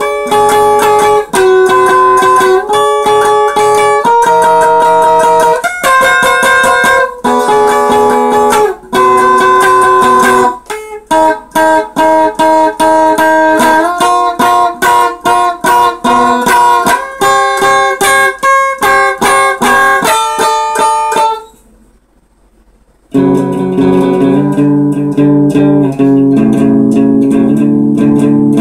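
Electric guitar played through a small combo amp, a melodic line of picked notes in the upper register. It stops for about a second and a half some two-thirds of the way through, then resumes with lower notes.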